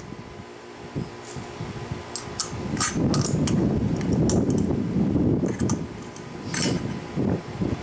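Small hard parts clinking and tapping at irregular intervals while a sprinkler pressure vacuum breaker valve is handled during repair, over a low rustling noise that grows louder about three seconds in.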